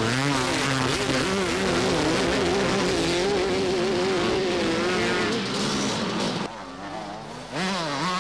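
Two-stroke motocross race bikes revving hard, the engine pitch rising and falling as the riders work the throttle. The sound drops back about six and a half seconds in, then a bike revs up loud again near the end.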